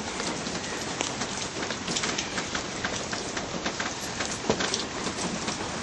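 Rain falling hard: a steady hiss dotted with many sharp drop hits.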